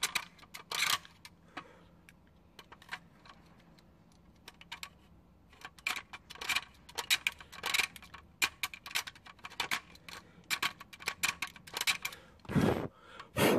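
Plastic clicking and clattering as a car's power window switch pack is handled and pressed into its plastic door-trim bezel, with quick runs of small clicks and a duller knock near the end.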